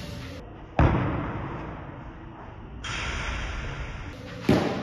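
Two sharp hits of a padel ball, about a second in and again near the end, each with a long echo from the large metal-roofed hall.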